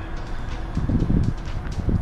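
Wind buffeting the microphone in two low rumbling gusts, about a second in and again near the end, over a steady low outdoor background.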